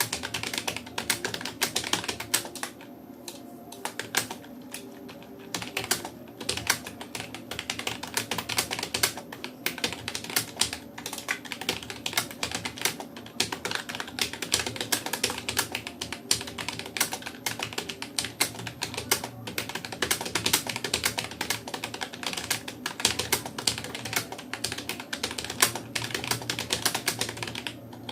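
Rapoo computer keyboard keys clicking in fast, continuous touch typing, easing off briefly about three seconds in.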